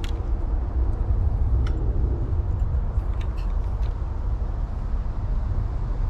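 Wind buffeting the microphone, a steady low rumble that rises and falls in level. A few faint clicks come from the spinning rod and reel as a lure is cast.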